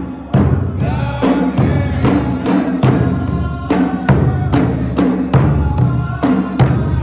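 Gulf Arabian folk music: drums struck in a steady, driving beat, about two to three strokes a second, with a group of men singing in chorus.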